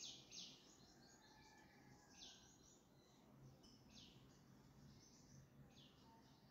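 Near silence with faint, short bird chirps now and then: a couple at the start, then single ones every second or two.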